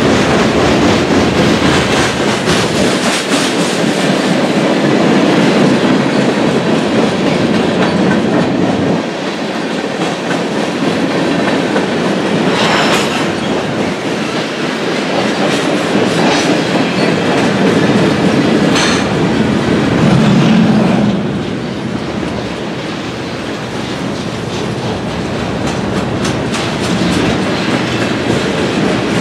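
Freight cars of a long Canadian National freight train rolling past close by: a steady rumble with wheels clattering over the rail joints. Two brief sharper noises stand out, about 13 and 19 seconds in.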